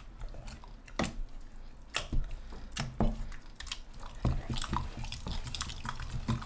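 Wooden ghotna (long saag masher) pounding and churning thick mustard-greens saag, thickened with cornmeal, in a steel pot: wet squelching with sharp knocks about once a second.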